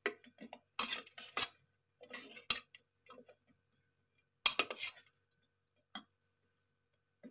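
Steel ladle stirring a watery chicken curry in a metal pot: a run of separate scrapes and clinks of metal on metal, with quiet gaps between the strokes.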